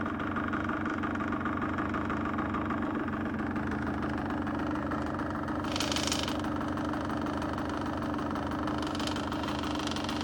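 Honda CRM motorcycle's two-stroke single-cylinder engine idling steadily with a knock in the engine. Brief bursts of hiss come about six seconds in and again near the end.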